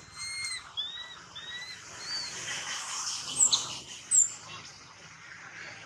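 Baby macaque squeaking: a run of about five short, high, rising-and-falling squeaks in the first two seconds, then two sharper, higher and louder chirps near the middle.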